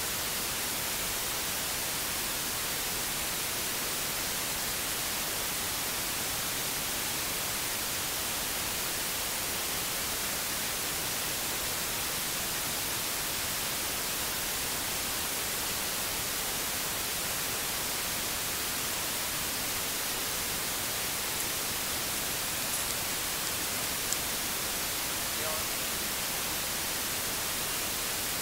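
Steady hiss of microphone and recording noise with no other activity, broken only by a couple of faint ticks late on.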